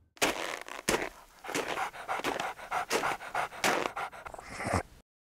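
Dog panting in quick, even breaths, about two to three a second, starting just after the start and stopping shortly before the end.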